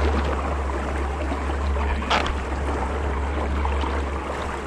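Steady low rumble of the boat's engine with water splashing and sloshing as a juvenile black marlin thrashes at the surface beside the hull. There is one brief sharper noise about two seconds in.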